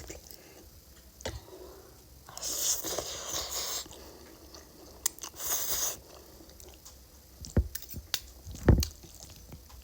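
Close-miked eating of spicy Korean instant noodles: chewing, with two longer noisy slurps about two and a half and five and a half seconds in, and a few sharp clicks and soft thumps.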